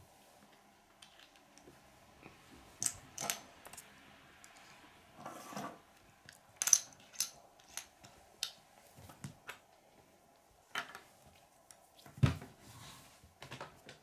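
Small plastic Lego pieces clicking and clattering as they are handled and set down on a wooden tabletop, a dozen or so scattered sharp clicks. A louder knock comes near the end.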